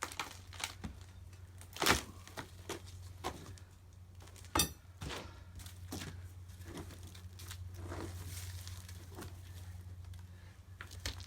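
Rotten wooden stair timbers being pried and pulled out: scattered knocks and thuds of wood, with some cracking and tearing. A steady low hum runs underneath.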